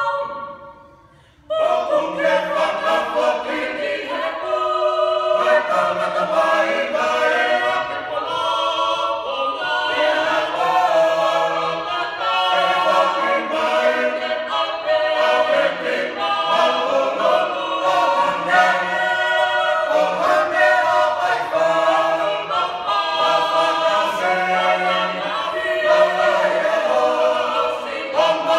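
Mixed Tongan church choir singing a cappella in several-part harmony, men's and women's voices together. The singing breaks off briefly at the start and comes back in about a second and a half in.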